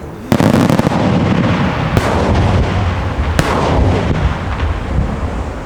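Aerial fireworks display: a salvo of shell bursts starts suddenly about a third of a second in and runs on as dense crackling and booming. Sharp single bangs stand out around two and three and a half seconds in, and the noise eases off near the end.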